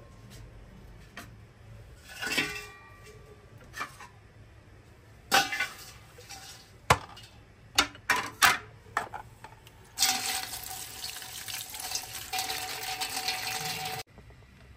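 A few clinks and knocks from a stainless steel colander being handled, then tap water pouring onto mint leaves in the colander to wash them, which runs for about four seconds and stops abruptly.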